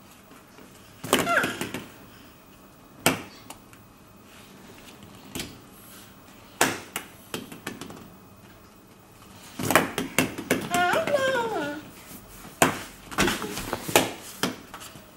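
Hollow plastic play balls knocking and bouncing on a wooden floor and against the play tent, in scattered sharp clacks. A baby's high babbling squeals come about a second in and again, longer and falling in pitch, about two-thirds of the way through.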